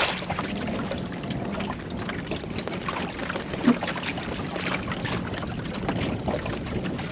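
Water rushing and splashing along the hull of a small Welsford Navigator sailing dinghy under way under sail, with one sharper slap of water against the hull a little over halfway through.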